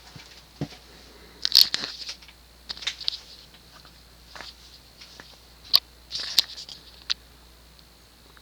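Early-1980s Union industrial ceiling fan running on low speed with a faint steady hum and a thin high tone. Over it come irregular crackles and rustles, about half a dozen, unevenly spaced.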